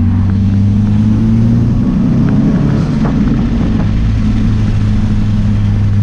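Turbocharged Nissan KA24DET 2.4-litre four-cylinder engine running at a steady cruise, heard from inside the car's cabin as a loud, even low drone.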